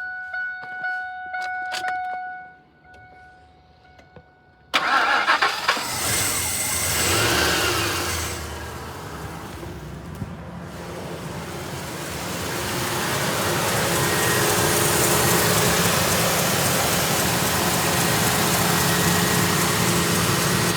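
A pitched chime dings for about two seconds, then, about five seconds in, the Ford F-250's 4.6-litre V8 cranks and catches suddenly. It revs up and settles into steady running that grows louder. It runs only on fuel poured into the intake, because its fuel pump has failed.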